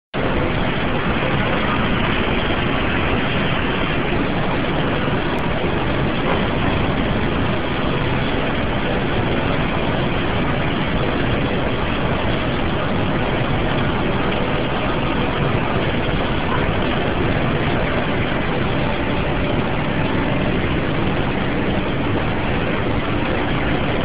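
Steady, even rushing noise in a big warehouse-style store where a 96-inch Hunter aluminum industrial ceiling fan is turning overhead; no separate sounds stand out.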